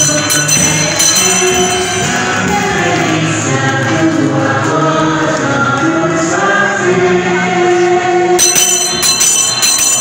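A hymn sung by many voices with musical accompaniment, inside a large church. Bells ring briefly at the start and again near the end.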